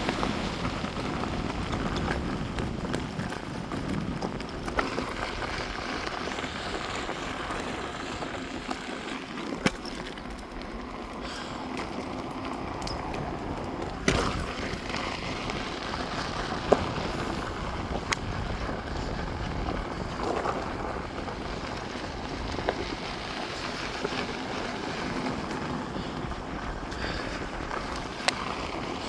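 Electric unicycle riding over a rough off-road trail: a steady rumble of the tyre on gravel and rocks with wind on the microphone, and several sharp knocks from stones scattered through it.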